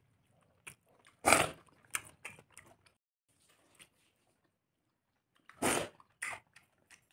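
Close-up eating sounds of a person eating watered fermented rice (basi pakhala) with fritters by hand: chewing and wet mouth noises, with two loud bursts, about a second in and near six seconds.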